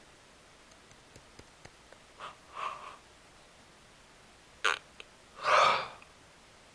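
A person's short breathy throat and mouth sounds, three bursts with the loudest near the end, after a few faint clicks.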